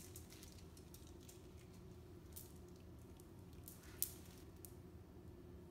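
Near silence with a low room hum and a few faint clicks of small marbles knocking together in a hand as they are let go onto a stretched spandex sheet, one sharper click about four seconds in.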